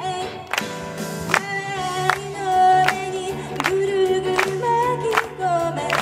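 A woman singing a pop song to her own electric keyboard accompaniment, with a steady clap on the beat about every three-quarters of a second from the audience clapping along.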